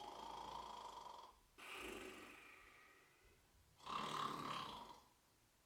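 A person making snoring noises: three long snores in a row, the third, about four seconds in, the loudest.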